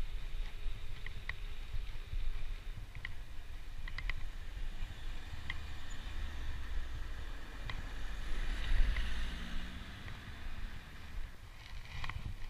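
Wind rumbling on the microphone of a camera riding along on a moving bicycle, with scattered light clicks and rattles from the bike. A hiss swells and fades about two-thirds of the way through.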